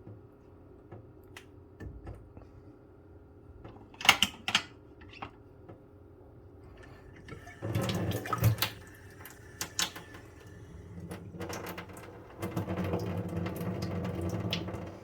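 Kitchen tap water running into a sink in two spells, the second and longer one near the end, with a few sharp clinks and knocks of dishes or utensils about four seconds in.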